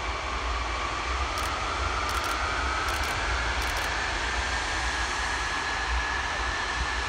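Antonov An-225 Mriya's six turbofan engines spooling up for take-off: a steady jet rumble with a fan whine that rises in pitch over the first few seconds and then holds steady.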